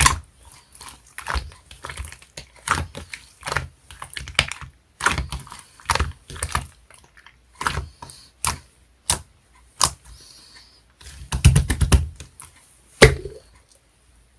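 Clear, jelly-textured slime being pressed and worked by hand, giving irregular crisp clicks and pops as trapped air bursts. A quick run of pops comes about three quarters of the way through.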